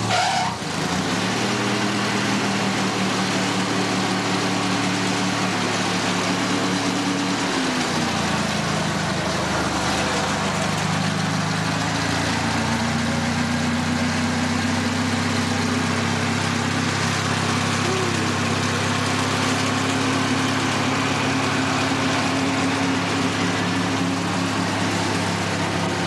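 Riding lawn mower engine running steadily. Its pitch drops around eight seconds in, then holds at a steady note.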